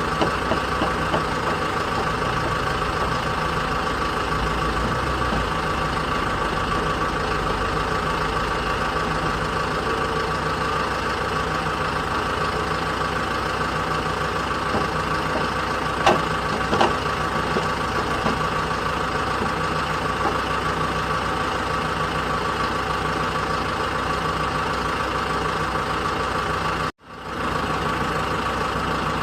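JCB backhoe loader's diesel engine running steadily at a constant speed, with a couple of short knocks about halfway through. Near the end the sound cuts out for a moment, then resumes.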